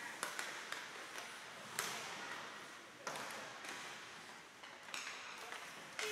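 Ice hockey play in a big, nearly empty rink: several sharp clacks of sticks and puck and knocks against the boards, each echoing through the hall, over a steady hiss of skates on the ice.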